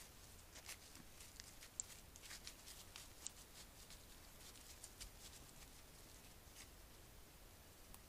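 Faint, irregular crackling and rustling of dry leaf litter as a white-tailed deer steps and grazes close by, with a couple of sharper ticks; it thins out near the end as the deer moves off.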